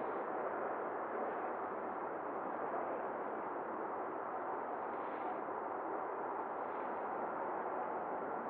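Steady hiss of an air traffic control radio feed between transmissions, a band-limited rushing noise with no voice on the channel.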